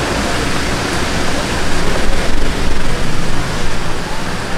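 A steady, loud rushing noise. It grows louder and more uneven for about two seconds in the middle.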